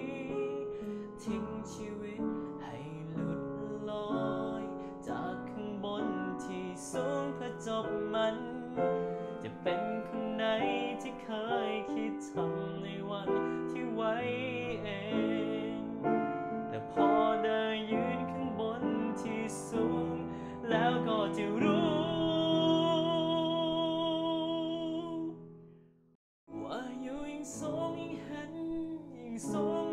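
A man singing a slow song to his own electronic keyboard accompaniment. Near the end he holds a long note with vibrato, then the music cuts off abruptly for a moment before starting again.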